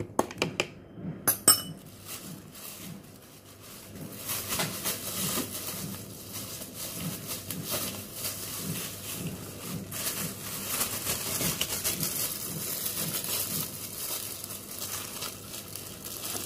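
Thin plastic bag and clear plastic food gloves crinkling as they are handled, after a few sharp clinks in the first second or so.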